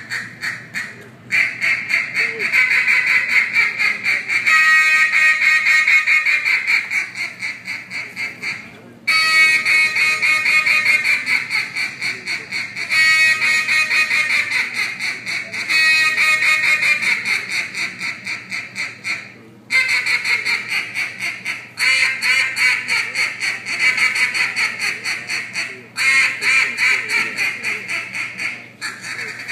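Competition mallard duck call blown into a microphone and heard through a PA: fast strings of quacks in runs that start loud and taper off, each new run starting after a brief break, with stretches of rapid chatter.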